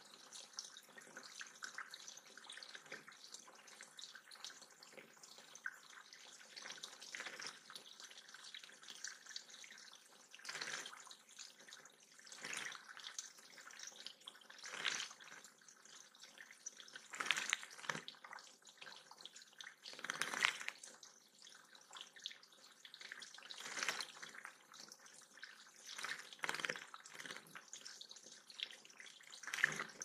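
Water trickling steadily over the rocks of a small backyard pond waterfall, with short splashes every few seconds from about a third of the way in. Near the end a tanager splashes as it bathes, fluttering its wings in the shallow water.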